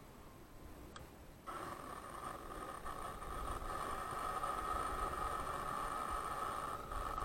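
A small motor starts suddenly about one and a half seconds in and then runs with a steady, even whine.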